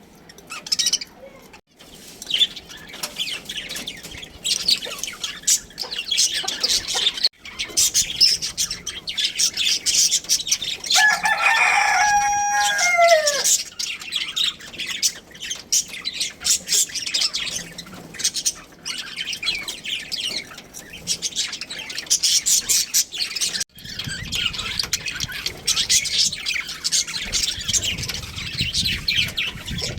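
Budgerigars chirping and chattering in rapid, continuous high twitters. About halfway through, a louder, lower call falls in pitch for a couple of seconds.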